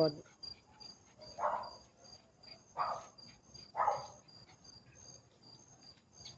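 Crickets chirping in a steady high, pulsing trill, with three short muffled noises about a second apart in the first four seconds.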